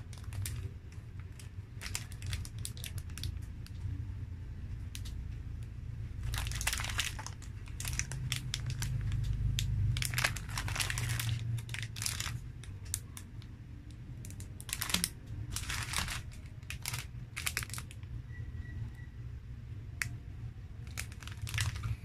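Foil-lined plastic snack-cake wrappers (Fudgee Barr packs) crinkling in irregular bursts as they are picked up and turned over in the hands.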